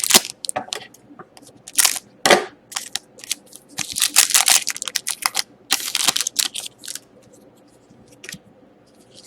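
Trading cards being handled and slid against each other, with a pack wrapper crinkling: irregular bursts of rustling and scraping, the busiest stretch about four to six seconds in.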